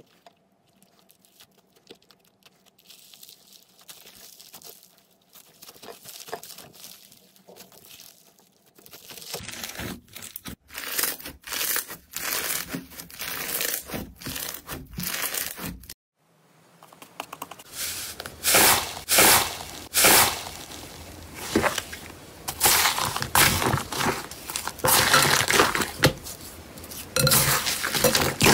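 Hands squeezing and pressing floam (foam-bead slime) and glossy slime, making crackling, crunching squishes in repeated strokes. Faint for the first several seconds, then much louder from about nine seconds in, with a brief break near the middle.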